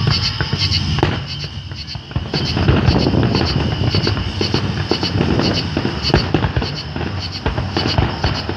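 Aerial fireworks shells bursting, many sharp bangs in quick succession. The bangs grow denser and louder about two seconds in.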